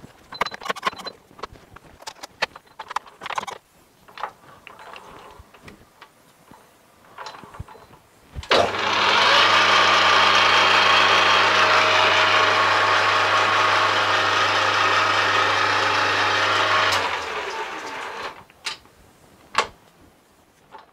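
Metal lathe headstock handled with clicks and knocks, then the lathe is switched on with a sharp clack: the motor and headstock gears run steadily with a hum and gear whine for about eight seconds while the chuck spins. It is then switched off and runs down, followed by a couple of sharp clicks.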